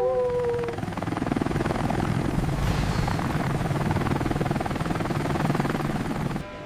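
An approaching rescue vehicle: a steady engine sound with a fast chopping pulse, like helicopter rotors, that cuts out just before the end. A wavering tone dies away in the first second.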